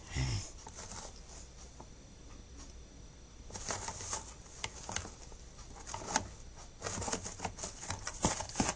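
Handling noise: a bump just after the start, then, from about three and a half seconds in, a busy run of small irregular clicks, taps and rustles as small objects are moved about by hand.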